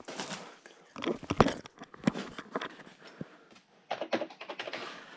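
Irregular knocks, clatter and rustling as old computer equipment and debris are handled and shifted, with the loudest knock about a second and a half in.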